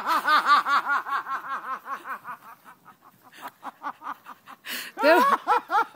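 A person laughing: a long run of rapid "ha-ha" pulses, about five a second, that slowly fades away, then a short louder burst of laughter near the end.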